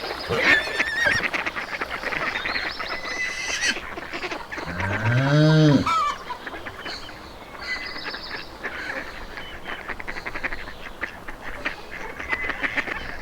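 Farmyard poultry calling: a dense run of clucks and honks throughout, with one low, drawn-out call about five seconds in that rises then falls and is the loudest sound.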